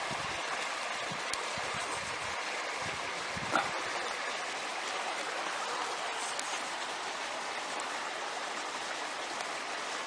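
Steady rushing of running water, with a single brief knock about three and a half seconds in.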